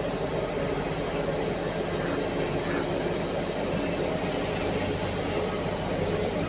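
Heavy diesel engine of large mining earthmoving equipment running steadily, with a faint high whine joining about halfway through.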